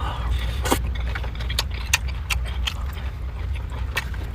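Chopsticks clinking against a metal lunch box, a string of sharp, irregular clicks, over a steady low hum.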